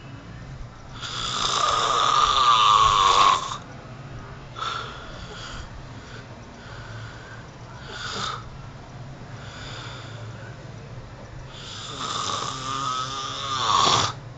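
A man snoring in his sleep: two long, loud, rattling snores about ten seconds apart, each building over two seconds and stopping abruptly, with softer breaths between them.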